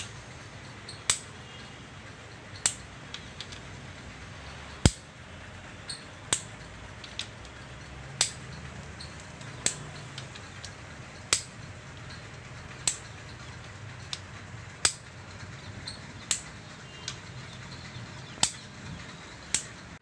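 Click-type torque wrench clicking sharply about every one and a half seconds, a dozen times, each click marking the set torque reached while the main-bearing bedplate bolts of a Hyundai i10 engine block are tightened.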